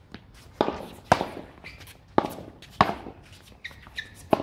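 Paddles hitting a ball back and forth in a doubles rally: five sharp pops spaced half a second to a second apart, each ringing briefly, with fainter ticks between them.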